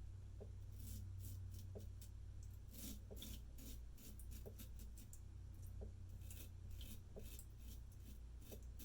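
Faint, scratchy strokes of a straight razor cutting through lathered stubble, one after another, over a steady low hum.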